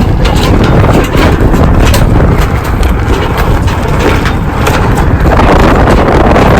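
Wind rushing over the microphone on the deck of a sailing yacht, a loud steady buffeting rumble with scattered knocks and clicks through it.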